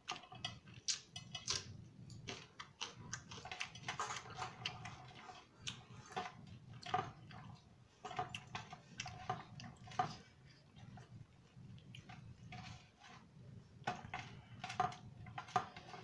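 Fingers mixing rice and chicken curry on steel thali plates: irregular small clicks and taps against the steel, some with a short metallic ring, over a steady low hum.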